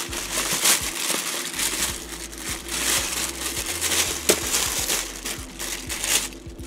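Thin plastic shipping bag crinkling and rustling as it is handled, in irregular crackly bursts.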